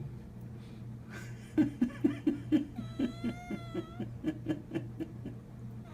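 House cat meowing: one long, drawn-out meow about three seconds in, among a run of short, quick vocal sounds about four a second, over a steady low hum.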